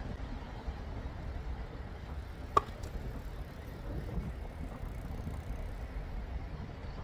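A single sharp click of a stiletto heel striking concrete paving about two and a half seconds in, with a faint second tick just after it, over a steady low rumble.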